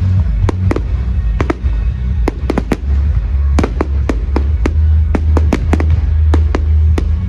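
Fireworks display going off: a rapid, irregular series of sharp bangs and cracks, about three a second, over loud music with a heavy bass line.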